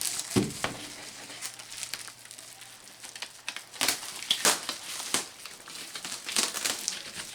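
Plastic wrapping crinkling as it is handled and pulled off a new HVAC air filter, in irregular crackles that come thicker about four seconds in and again near the end.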